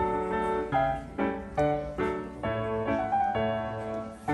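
Background piano music: a gentle tune of struck notes and chords, changing about every half second.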